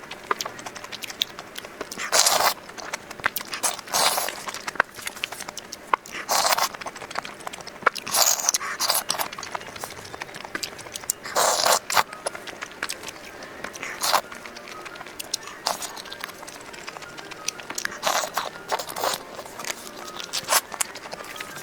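Close-miked eating of a crispy fried chicken sandwich: loud crunchy bites come every couple of seconds, with quieter chewing between them.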